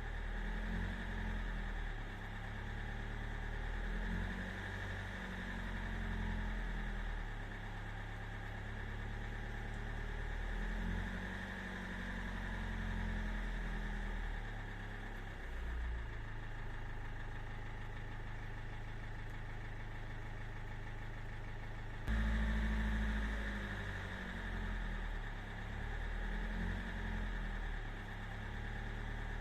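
Electric motor and gearbox of a 1:12 scale WPL RC truck running steadily, with a steady whine. It gets abruptly louder about two-thirds of the way through.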